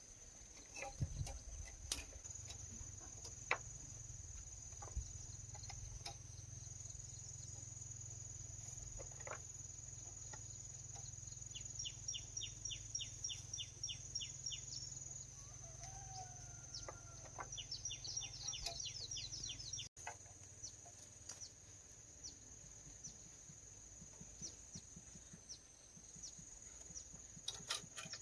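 Outdoor farmyard ambience: chickens clucking and birds giving runs of rapid high chirps in the middle, over a steady high insect buzz, with scattered light knocks.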